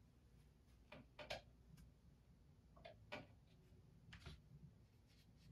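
Near silence with a few faint ticks and taps, a couple at a time about every second and a half, from a paintbrush working paint on a palette.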